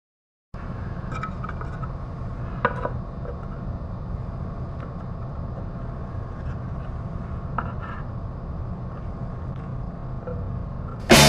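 Wooden boards being set down and shifted on concrete cinder blocks: a few short, light wooden knocks and scrapes over a steady low hum. Near the end, loud rock music cuts in.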